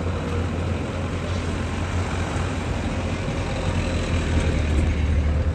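Steady low rumble of motor vehicle engines running, with no pauses.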